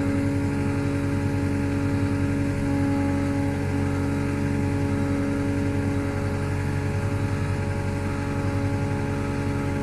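Caterpillar CW34 pneumatic-tyred roller's diesel engine running steadily as the machine travels, heard from inside the cab.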